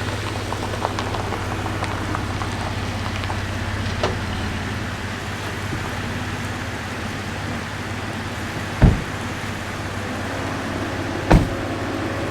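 Leftover rice with tomato and ham frying in a pan, sizzling with small crackles over a steady low hum, and two sharp knocks in the second half.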